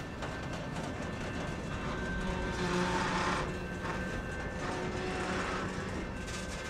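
Freight cars of a passing train rolling by: boxcars and covered hoppers. Their wheels make a steady rumble on the rails, with faint steady high tones over it, and the rolling noise swells briefly about three seconds in.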